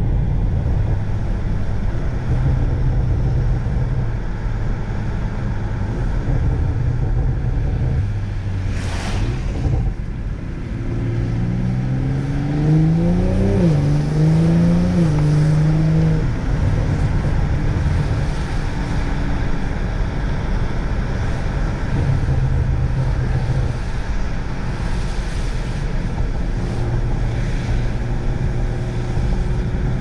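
BMW M340i's turbocharged inline-six running under way, over a steady rush of tyre noise through snow. Around the middle, the engine note climbs twice, dropping sharply in between. A single short knock comes about nine seconds in.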